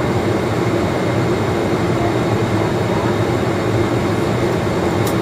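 Steady cabin noise inside a Boeing 767-300ER airliner on approach: an even rush of engines and airflow with a faint steady hum beneath it.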